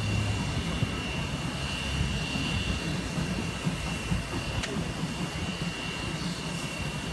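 Steam locomotive turning on a rail turntable: a steady low rumble with a thin high whine held throughout.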